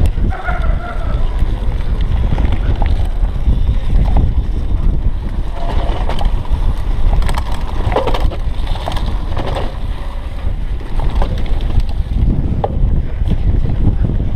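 Wind buffeting the action camera's microphone at speed, over the rumble of cyclocross tyres on a dirt and grass track, with scattered clicks and rattles from the bike over bumps.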